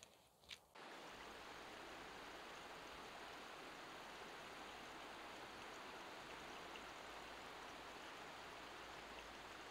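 Shallow river rushing over stones, a steady even wash of water that starts abruptly about a second in. Before it, a faint footstep or two on a grassy trail.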